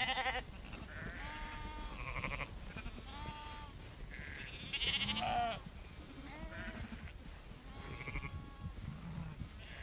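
A flock of sheep bleating, with separate calls following one another and some overlapping. The loudest bleats come right at the start and about five seconds in.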